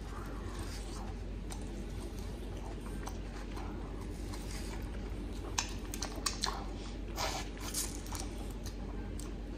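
Close-up eating of a sauced chicken wing: chewing and gnawing at the bone, with a cluster of short, sharp wet clicks from mouth and teeth between about five and a half and eight seconds in, over a steady low hum.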